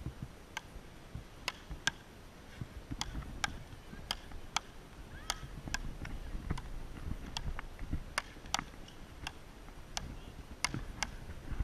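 Frescobol rally: a rubber ball struck back and forth between wooden paddles, sharp pops about every half second over a low rumble.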